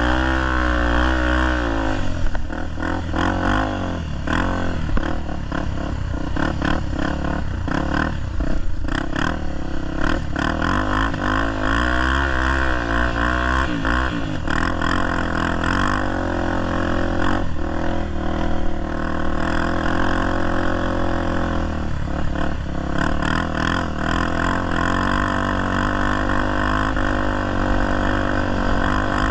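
Honda XR250 Tornado's single-cylinder four-stroke engine running under load while ridden, its pitch rising and falling with the throttle, with scattered knocks and clatter. The bike is being ridden without a working clutch after the clutch cable broke.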